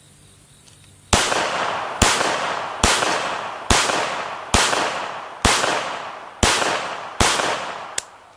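Savage Model 1907 semi-automatic pocket pistol firing eight single shots, a little under one a second, each with a long echo dying away behind it. Near the end comes one short, sharp click.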